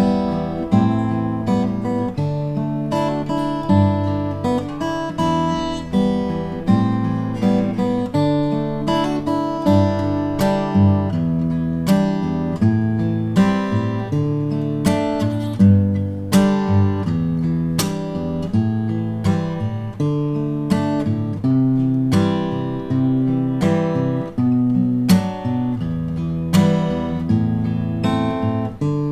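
Mentreel S20DC acoustic guitar, a steel-string dreadnought with a solid spruce top and laminated mahogany back and sides, played fingerstyle: a picked melody over changing bass notes. From about ten seconds in it adds sharp chord strikes every second or two.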